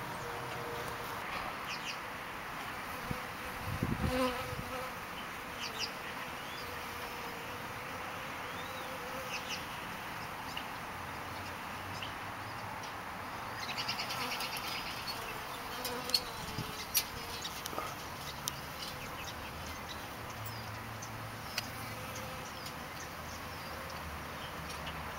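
Bees buzzing low over the pond's water with a steady hum, broken by a few short, sharp clicks and taps.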